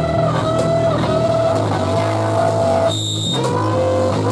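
Loud live noise-rock: electric guitar holding sustained, wavering high tones over a low droning rumble. The middle of the sound drops out briefly about three seconds in, then comes back.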